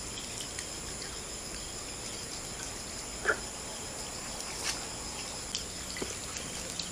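Steady chorus of insects such as crickets chirping, with a few faint clicks and one short, louder knock about three seconds in.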